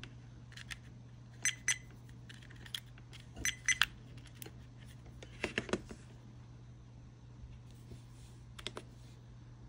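Small plastic clicks and taps from handling a Viofo A119 dashcam's case and pressing on it, coming in short clusters of two or three, over a steady low hum.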